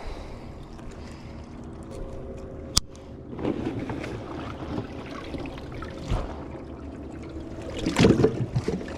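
Handling noises aboard a fishing boat: one sharp click about three seconds in, low rustling and knocking over a steady low rumble, and a louder flurry of knocks and clatter near the end.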